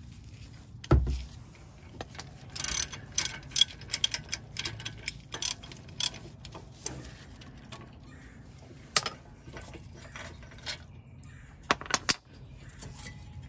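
A ratchet wrench and socket being worked on the steel caliper bracket bolts of a front disc brake, making irregular metal clicks and clinks. There is a dull knock about a second in, and two sharp metal clanks near the end as the bracket is handled.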